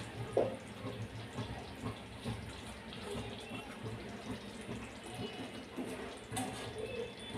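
Creamy gravy simmering in a kadai on a lit gas stove, with soft, low bubbling and small scattered pops, and a light click of a spoon against the pan near the end.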